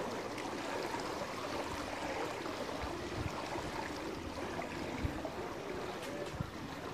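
Swimming pool water running steadily into the grated overflow gutter along the pool's edge.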